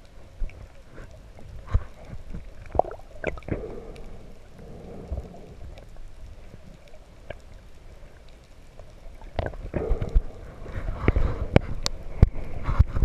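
Muffled underwater sound from a camera held below the surface: a low rumble with scattered sharp clicks and knocks, which grow busier and louder near the end.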